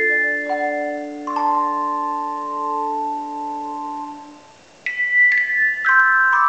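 Tone chimes playing slow chords of struck, long-ringing notes that die away; after a near-pause about four and a half seconds in, a new phrase of higher notes is struck one after another.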